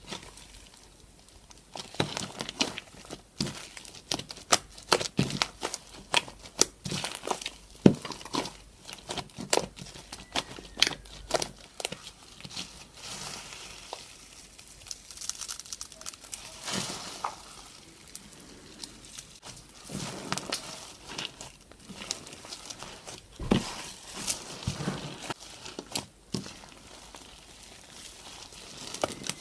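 Crunchy slime being squeezed and worked by hand, giving off many irregular crackles and pops.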